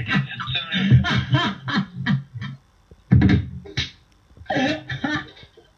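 A man laughing hard in rapid, pulsing bursts, in three bouts with short pauses between them.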